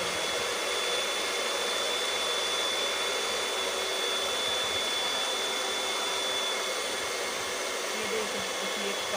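Electric hand mixer running at a steady speed, its beaters whisking eggs in a glass bowl, with a thin high motor whine over the whirr.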